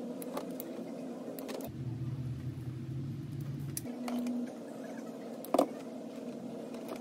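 Hand-tool clicks and handling noise as wires are stripped and crimped into heat-shrink butt splices, with one sharper click about five and a half seconds in, over a steady low hum and a brief low rumble in the middle.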